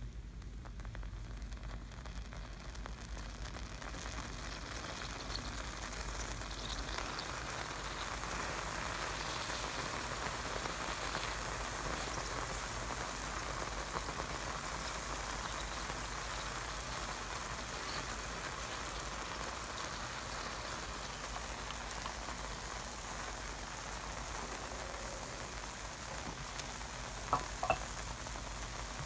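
Sulphuric acid sizzling on a McChicken sandwich as it chars the bun and breading black, a steady crackling fizz that grows louder over the first several seconds and then holds. Two sharp clicks near the end.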